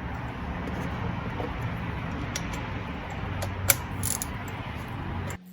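A few sharp metal clinks from a spark plug socket and ratchet working on a spark plug, over a steady background hum and hiss that cuts off abruptly near the end.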